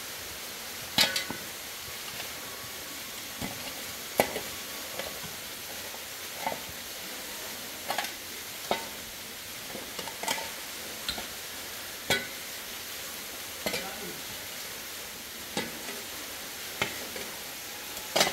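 Long-handled shovel scraping and striking dry, stony soil, with sharp scrapes coming unevenly about once a second over a steady hiss.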